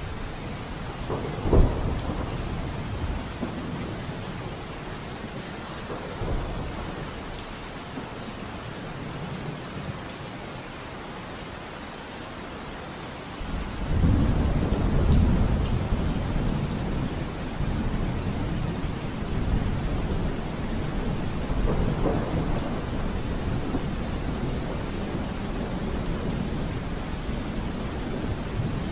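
Steady rain with thunder: a sharp clap about a second and a half in, then a long low rumble that swells about halfway through and rolls on.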